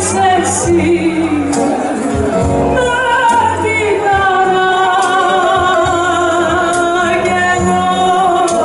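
A woman singing a rebetiko song live with bouzouki, guitar, hand percussion and double bass, holding long, slightly wavering notes through the second half.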